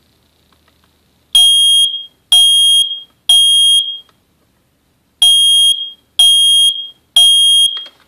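Kidde i9060 smoke alarm sounding under test: two rounds of three loud, high-pitched beeps, each about half a second long, starting about a second in. This is the standard three-beep temporal evacuation pattern.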